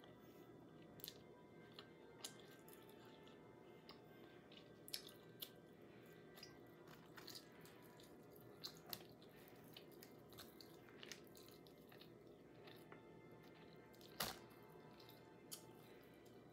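Faint mouth-noise eating sounds: scattered soft wet clicks and smacks of chewing and of barbecue chicken being pulled apart by the fingers, over a faint steady hum. The sharpest click comes near the end.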